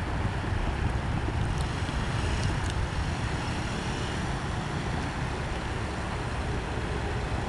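Steady wind rumble on the microphone over a Honda CBR125R's small single-cylinder four-stroke engine as the motorcycle pulls away and rides off.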